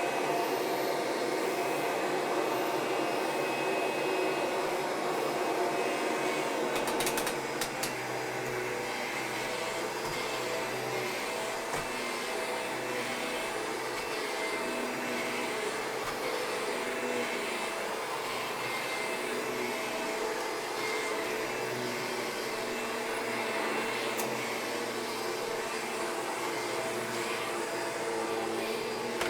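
Vacuum cleaner running steadily as it is pushed over carpet during pre-vacuuming, with a steady motor whine. A few brief clicks come about seven seconds in, where the sound drops slightly.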